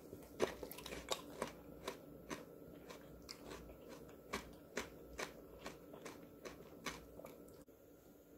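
Crisp crunching of a spicy seasoned cucumber and onion salad: a string of sharp crunches, about two to three a second, stopping shortly before the end.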